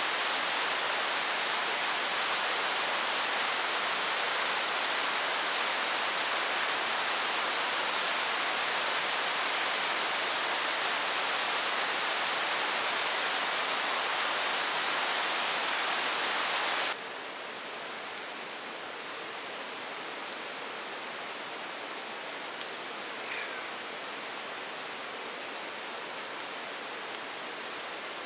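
Steady rushing hiss of water, as of rain or a stream. About 17 seconds in it drops suddenly to a quieter hiss with a few faint ticks.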